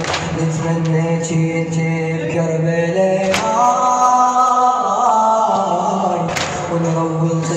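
Male vocal chanting of a Shia latmiya (mourning elegy): slow, drawn-out sung notes in layered voices, with a sharp hit about every three seconds.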